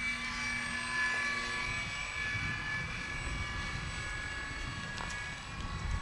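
Electric motor and propeller of a radio-controlled model airplane in flight, a steady whine with several fixed pitches. The motor makes the fuselage resonate, which makes it noisy. Wind rumbles on the microphone underneath.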